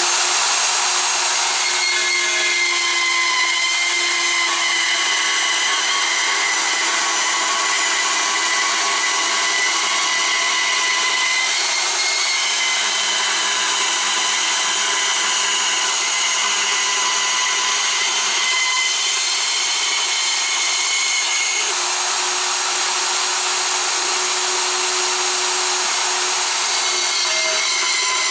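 Portable band saw running steadily as its blade cuts through a rusty 11-gauge steel plate: a steady high-pitched whine over a hiss.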